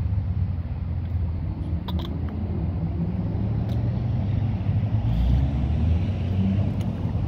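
Wind buffeting the phone's microphone: a steady, fluttering low rumble, with a few small clicks about two seconds in.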